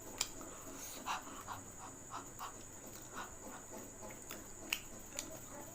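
A person panting in quick, soft breaths, about two or three a second, with a few sharp clicks of the mouth, from the burn of chilli-hot food.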